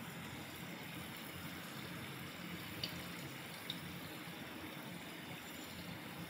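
Mini potato singaras deep-frying in oil: a faint, steady bubbling sizzle. Two faint ticks about three seconds in.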